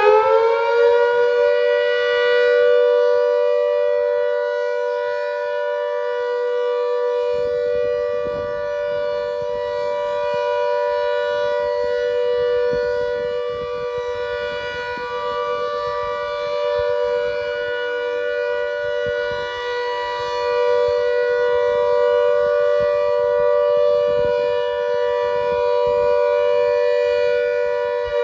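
Klaxon GP8 electro-mechanical siren sounding a long steady blast of its Alert signal, the second of three blasts. It finishes winding up to full pitch in the first second, holds one steady two-note chord, and begins to wind down at the very end.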